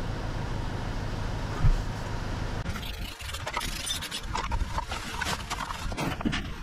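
Steady background noise with a single thump, then, from about two and a half seconds in, irregular scratchy crackling as plastic engine timing covers coated in foaming cleaner are scrubbed with a paintbrush.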